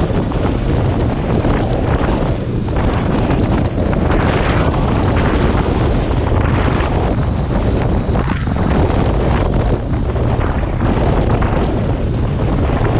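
Steady wind buffeting the microphone of a camera on a motorcycle moving at road speed, with the rush of the ride underneath.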